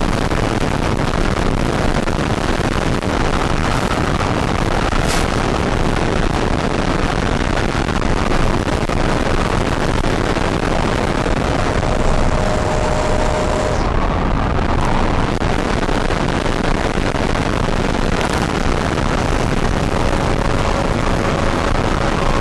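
Loud, steady rush of wind and motor noise heard from a camera on board an RC model jet in flight, with a faint whine that shifts in pitch now and then.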